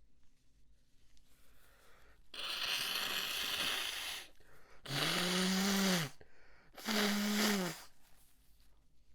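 A congested person's nose and breath blasts: one long, noisy rush of air about two seconds in, then two shorter, louder honking blasts through a snotty, blocked nose.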